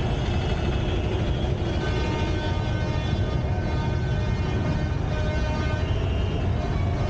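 Street traffic: vehicle engines with a steady low rumble and some faint held whining tones.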